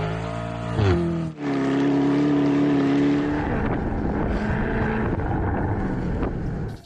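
Lamborghini Urus's twin-turbo V8 accelerating under load while towing a skier through snow: the note climbs and shifts about a second in, holds steady for about two seconds, then turns into a rougher rush.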